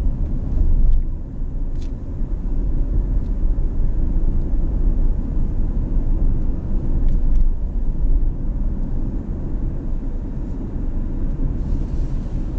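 Steady low rumble of a car driving, engine and road noise heard from inside the cabin, with a few faint clicks.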